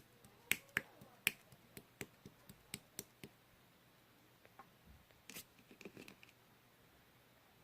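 A run of sharp, light clicks or taps, about three or four a second over the first few seconds, then a short cluster of softer taps about five to six seconds in.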